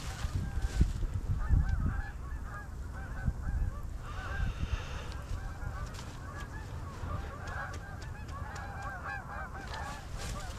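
A flock of geese honking, many overlapping calls at once, as the birds come in. A low rumble sits under the calls for the first two seconds or so.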